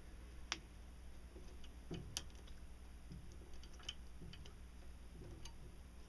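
Faint, scattered small clicks and taps of a Glock 23 slide and its back plate being handled as the plate is worked onto the slide, over a low steady hum.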